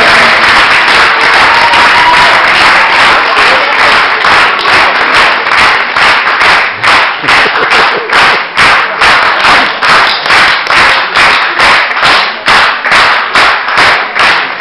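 Audience applauding: a dense burst of clapping that settles after a few seconds into rhythmic clapping in unison, about two claps a second.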